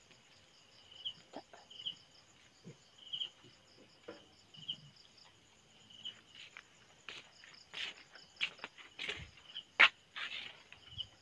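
Night insects, crickets among them, chirping: a short high chirp about once a second over a faint, steady, pulsing high trill. In the second half a run of sharp clicks and knocks comes through, the loudest about ten seconds in.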